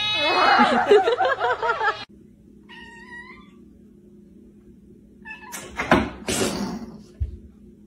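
Two cats yowling at each other face to face, a loud wavering run of calls lasting about two seconds. Then a short faint meow about three seconds in, a brief noisy burst around six seconds and a low thump near the end.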